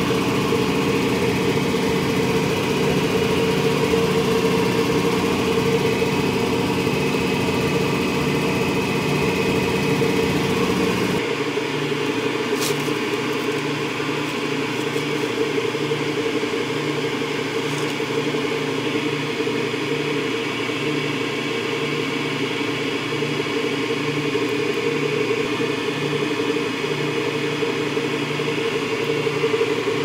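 Steady hum of running machinery in a chiller plant room, with several steady tones. About 11 seconds in, the deepest part of the hum drops away and a lighter hum carries on.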